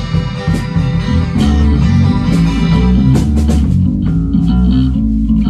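Rock band playing live: electric guitar and bass guitar with a drum kit. After a few drum hits, the guitars and bass come in with loud held chords about a second and a half in.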